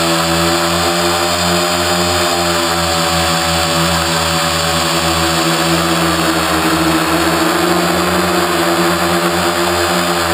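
Quadcopter's electric motors and propellers running steadily while it hovers, heard up close from a camera mounted on the craft: a loud, even whine with a hiss above it, the pitch wavering slightly partway through as the motors adjust.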